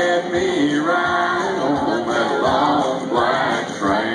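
Live country band playing with sung vocals over acoustic guitar and the band, heard from the audience through a loud venue sound system.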